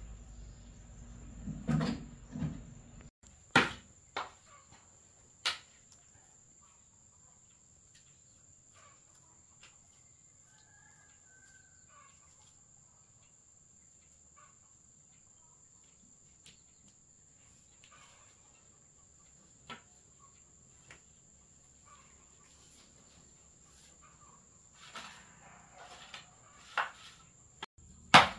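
Insects trilling in a steady high drone, with occasional sharp knocks and clatters: a few about three to five seconds in, and a cluster near the end.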